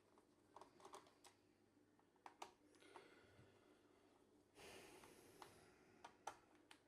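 Near silence with a few faint small clicks and a brief soft scrape about two-thirds of the way through: hands handling the opened laptop's parts during disassembly.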